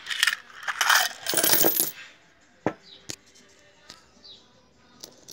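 Brazilian coins tipped out of a cup, clattering out together for about two seconds, then two sharp clinks and a few lighter ticks as single coins are handled.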